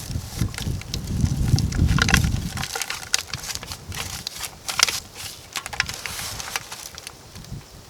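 Irregular crunching and crackling, over a low rumble that stops about two and a half seconds in.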